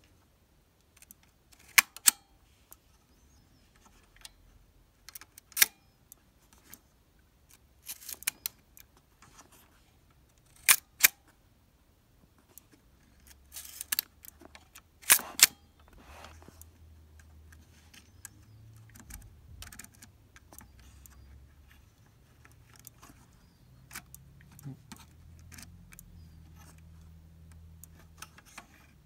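Prontor-SVS leaf shutter on a Polaroid 110A Pathfinder being cocked and fired by hand: sharp metallic clicks, several in close pairs a fraction of a second apart, over the first half. Later only faint handling noise and small ticks follow.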